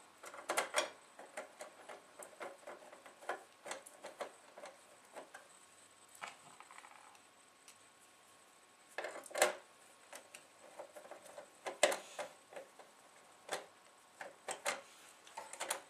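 Screwdriver and small screws clicking and scraping against the metal chassis and circuit board of a Denon DN-D4000 CD player as the screws are set loosely in their holes. The clicks are light and irregular, with a few sharper knocks about nine, twelve and thirteen seconds in.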